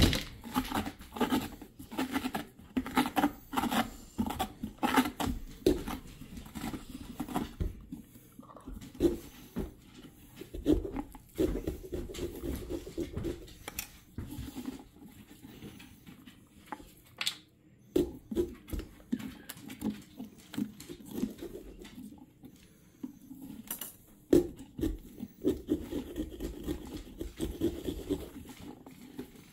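Pumpkin carving knife sawing through a pumpkin's rind and flesh: runs of short, irregular scraping cuts with brief pauses.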